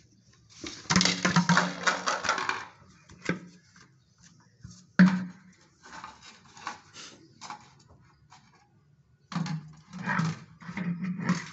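Plastic chicken feeder being handled: irregular clatter and knocks of the plastic bottle and red lid, with a sharp knock about five seconds in.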